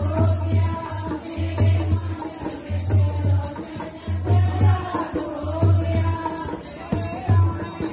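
Devotional music: a deep beat about once a second under percussion and a melody.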